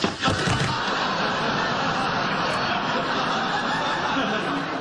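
Sitcom studio audience laughing, a steady wash of laughter that fades out near the end.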